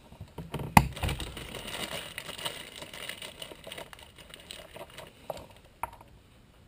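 Hand handling noise on a roof vent and aluminum trailer roof: one sharp knock about a second in, then light clicks and rubbing as hands press along the vent's plastic flange.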